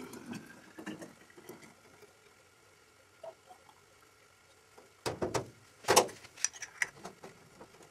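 Elderflower syrup pouring from a saucepan through a tea strainer into a glass bottle, with a pitch that rises as the bottle fills. About five seconds in come a few sharp clinks and knocks of glass and kitchenware being handled.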